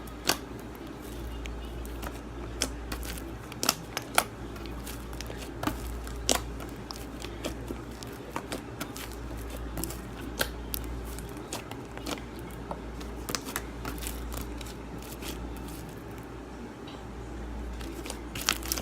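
Sticky slime being kneaded and stretched by hand as Model Magic clay is worked into it: irregular small clicks, pops and squishes, over a low steady hum.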